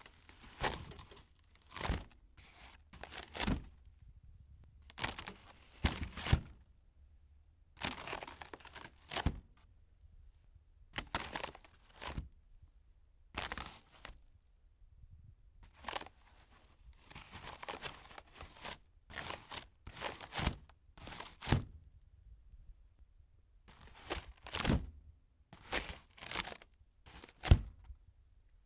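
Popcorn-textured ceiling panels being pushed up by hand: repeated dull knocks and short scraping, crinkling rustles as the panels lift and shift in their frame, each separated by brief pauses.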